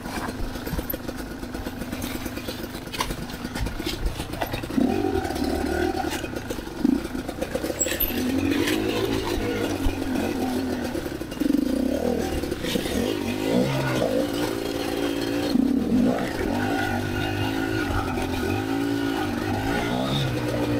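Kamax KMX 250MT two-stroke dirt bike engine running at low revs, then revved up and down again and again from about five seconds in as it is ridden slowly through a technical trail section. There are a few sharp knocks along the way.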